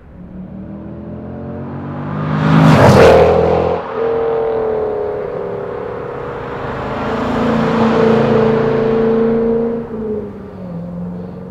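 1997 Corvette's 5.7-litre LS1 V8 running, its note rising to a loud peak about three seconds in, cutting back sharply, then swelling again more slowly before falling away near the end.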